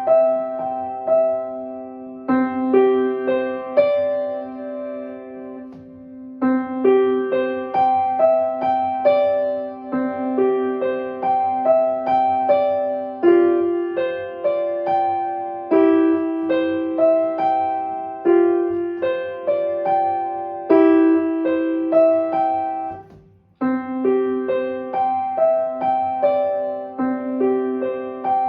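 Solo piano playing a flowing, repeating pattern of broken-chord notes over a held low note. It breaks off briefly about 23 seconds in, then the pattern starts again.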